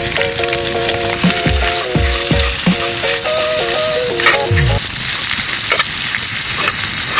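Squid pieces sizzling in butter in a small pot on a gas camping stove, a steady hiss, with light clicks of metal tongs turning them. A short melody with a beat plays over the first few seconds and stops about five seconds in.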